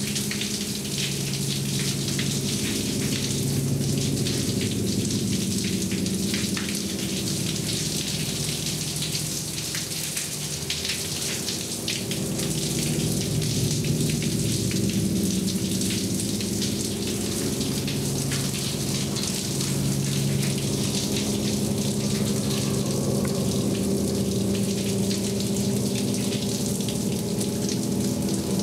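Shower water spraying steadily, a continuous hiss, with a low droning hum of several steady tones underneath.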